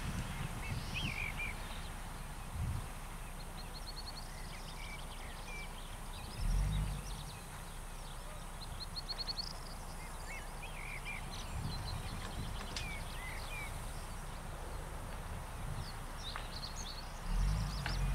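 Small birds chirping and singing in short repeated phrases throughout, over a steady outdoor background. Twice, about six seconds in and again near the end, wind gusts rumble on the microphone.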